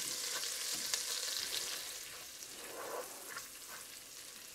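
Olive oil and butter sizzling and crackling in a hot Dutch oven while a spatula stirs and scrapes the bottom, deglazing the browned bits left from searing the chicken. The sizzle is louder for the first two seconds, then dies down.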